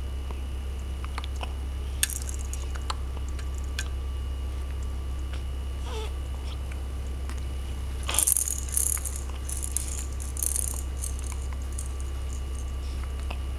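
A baby toy rattling and clicking in scattered bursts, loudest about eight seconds in, over a steady low hum. About six seconds in comes a short, small vocal sound that fits a baby's hiccup.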